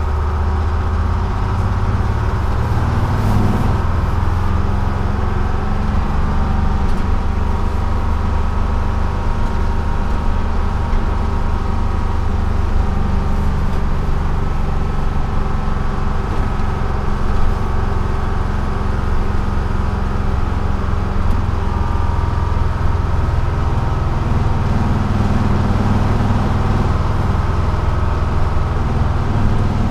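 A 1948 GMC Silversides bus under way, heard from the driver's seat. Its Detroit Diesel 6-71 two-stroke diesel gives a steady low drone over road and body noise.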